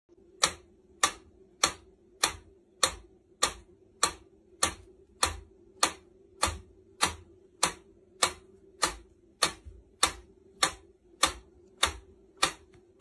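Mechanical pyramid metronome ticking steadily, one sharp click a little under twice a second.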